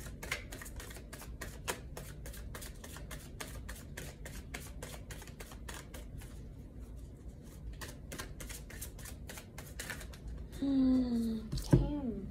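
A deck of tarot cards being shuffled by hand: a quick, irregular run of soft card flicks, several a second. Near the end a woman exclaims, followed by a single sharp tap.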